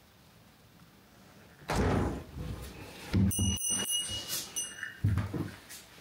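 Footsteps crunching and thudding over fallen ceiling tiles and debris on an old wooden floor, starting a little under two seconds in. About halfway through, a high ringing tone sounds for a second or two over the steps.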